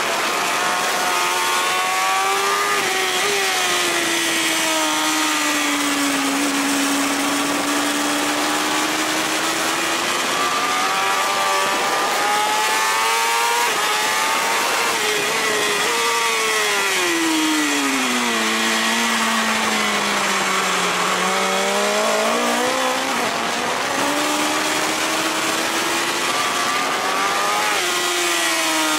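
BMW S1000RR's inline-four engine at racing speed, heard onboard over rushing wind. The revs rise and fall as it is ridden through the corners, dropping lowest about three-quarters of the way through before climbing again.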